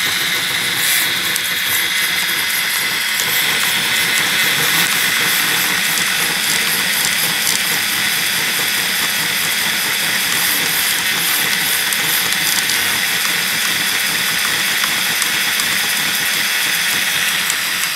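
Small desktop 3D printer at work: a steady hiss from its print-head cooling fan, with the stepper motors whirring as the head and bed move.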